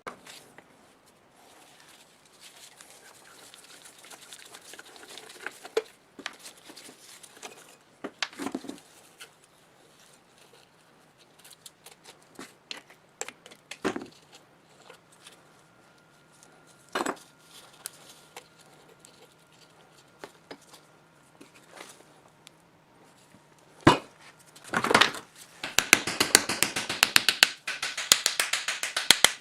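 Hand work on an old electric motor: scattered clicks and knocks of metal parts and tools. About 25 seconds in, a fast run of scraping clicks takes over and is the loudest part.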